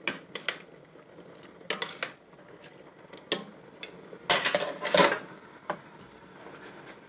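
Kitchen tongs clinking and scraping against a stainless steel saucepan as spaghetti is stirred in water. The clinks come in irregular spurts, with the loudest flurry about four seconds in.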